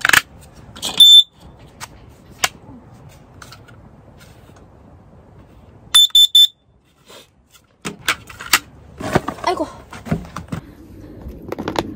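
Skyone carbon monoxide alarm beeping: one short, loud high-pitched beep about a second in, then three quick beeps at about six seconds as its test button is pressed. Clicks and rustling of the unit being handled in and out of its packaging come around the beeps.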